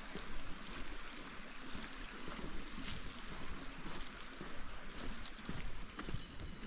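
Steady hiss and patter of rain mixed with the rush of a small creek running beside a country road.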